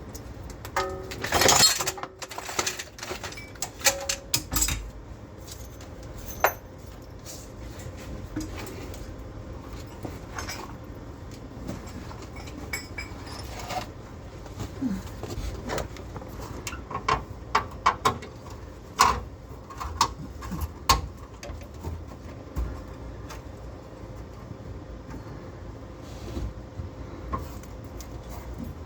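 Scattered metal clinks and knocks of hand tools and steel parts being handled, with a louder clatter about a second and a half in and a quick run of knocks near the middle.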